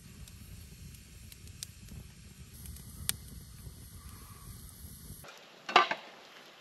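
Newly lit campfire of paper and split wood burning in a metal fire pit: a low rumble of flames with a few sharp crackles and pops. Just over five seconds in the rumble cuts off, and a brief, louder crunching noise follows.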